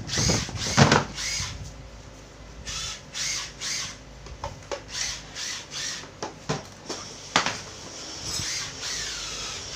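Hard plastic tool cases being moved and set down on a tile floor: scattered knocks and clatter with scraping slides between them.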